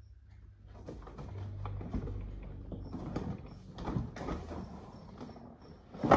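Plastic body of a 6-volt kids' battery ride-on car creaking and knocking irregularly under an adult of about 92 kg, far over its 25 kg limit, as he climbs in. A single sharp knock comes near the end.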